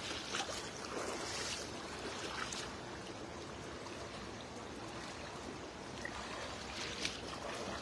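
Shallow flowing water rushing steadily, with soft splashes of a person's wading steps through it.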